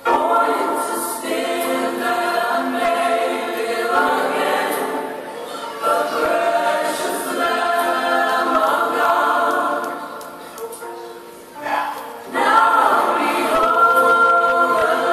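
A choir singing a Christian song with music behind it. The singing dips briefly about eleven seconds in, then swells back fuller.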